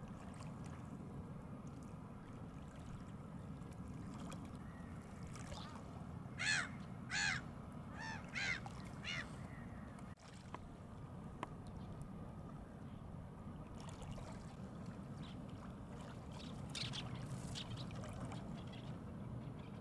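Great crested grebes calling: a run of about five loud calls in some three seconds, then a few fainter calls later, over a steady low background noise.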